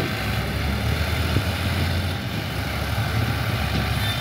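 Tractor engine running steadily at low revs: a continuous low drone.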